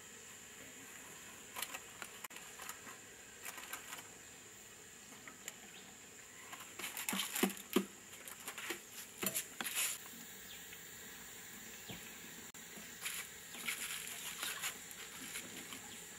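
Scattered rustling and clicking of a foil milk-powder packet, a plastic bottle and steel cups being handled, over a steady high-pitched hiss.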